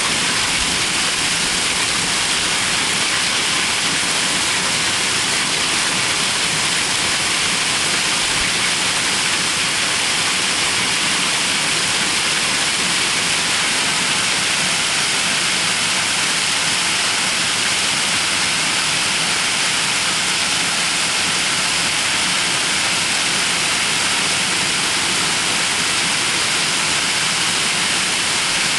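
Hailstorm: hail and rain pouring down in a dense, steady noise that does not let up.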